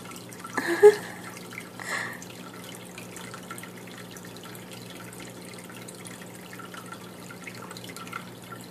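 Water trickling and dripping steadily over a low, even hum, with a short louder sound about a second in and a smaller one near two seconds.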